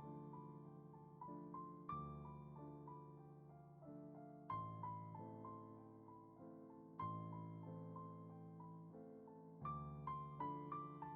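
Soft background piano music: a slow, gentle melody of single struck notes over sustained chords.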